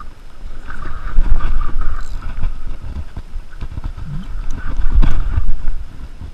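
Shimano Stradic 8000FJ spinning reel whirring in bursts under the load of a hooked barracuda, over a low rumble and scattered knocks.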